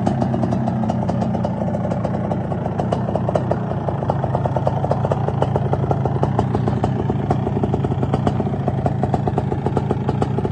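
Suzuki LT500R Quadzilla's 500cc two-stroke single-cylinder engine running at a steady speed, with a fast, even pulsing from the exhaust.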